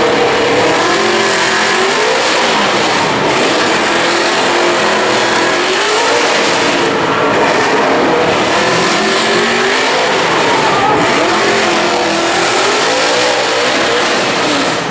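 Two drift cars, a Nissan 370Z and a Ford Mustang, driven hard in a tandem drift. Their engines rise and fall in pitch over and over as the throttle is worked, over a loud hiss of spinning, smoking tyres.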